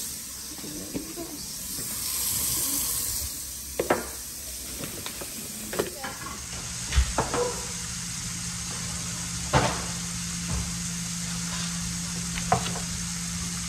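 Kitchen sounds while hot chocolate is being heated. A hiss runs through the first half, sharp knocks and clinks of cups and utensils come every second or two, and a steady appliance hum starts about halfway through.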